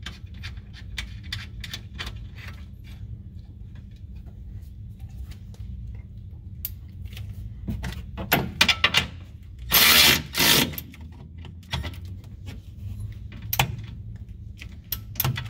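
Small metal clicks and rattles of hardware as a 14 mm nut is threaded onto a UTV sway bar end link, then a cordless ratchet running in short bursts about eight and ten seconds in as it drives the nut down.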